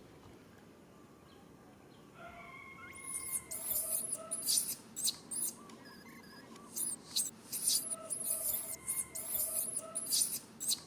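Baby monkey squealing in a rapid run of short, very high-pitched cries, starting about three seconds in and repeating over and over.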